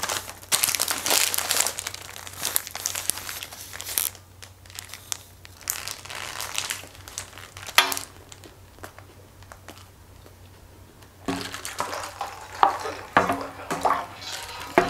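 Paper burger wrapper crinkling and rustling in irregular bursts as a burger is unwrapped and handled. The bursts are busiest in the first few seconds, come again in the middle, and pause briefly before starting up again.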